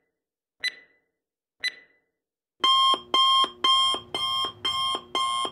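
Countdown timer's last two short ticks, a second apart, then its digital alarm going off about two and a half seconds in: loud repeated pulses, about two a second, signalling that the timer has reached zero.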